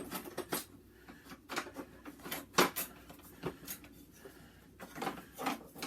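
Kitchen utensils clattering and clinking while someone rummages for a spatula: a scattered series of knocks and clicks, the loudest about two and a half seconds in.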